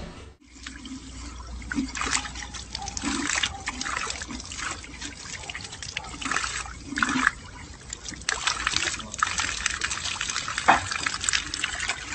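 Water trickling and splashing from a garden fountain's terracotta pot spout, in irregular surges as a dog bites and laps at the stream.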